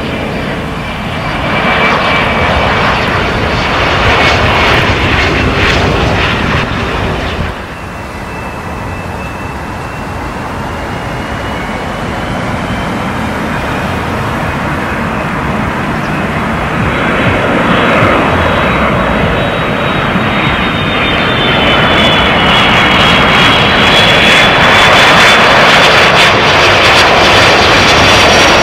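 Jet airliner engines passing close: a loud rush of engine noise with a high whine over it. It drops suddenly about seven and a half seconds in, then builds steadily to its loudest near the end.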